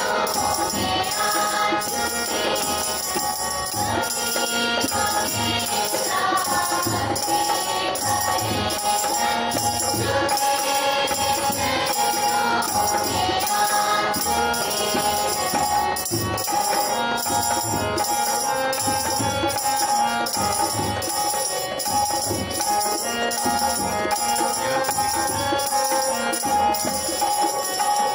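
A group of students singing a Hindi prayer song, accompanied by hand drums (dholak and tabla) over a steady held drone. A jingling percussion beat about twice a second keeps time.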